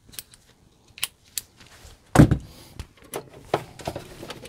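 Handling noise in a cramped cabinet: scattered clicks, taps and light rattles of hands and tools on an RV converter's wiring, with one heavy thump about two seconds in.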